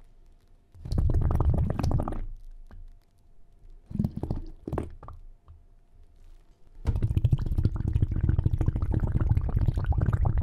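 Low underwater gurgling and bubbling, in two short swells about a second and four seconds in, then steady from about seven seconds on.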